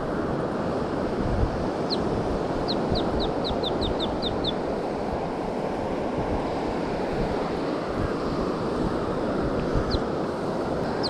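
Steady rush of surf and wind on an open beach, with a bird giving a quick series of about eight short, high, falling chirps about two seconds in and a single chirp near the end.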